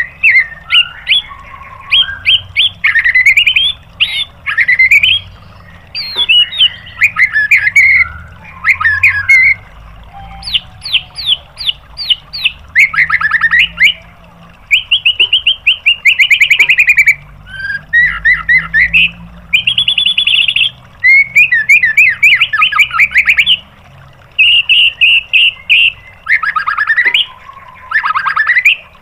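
White-rumped shama (murai batu) singing a varied song. It runs phrase after phrase of rapid-fire repeated notes, trills and sweeping whistles, with short pauses between them.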